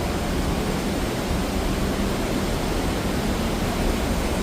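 Steady, even rush of falling water from the Misol-Ha waterfall.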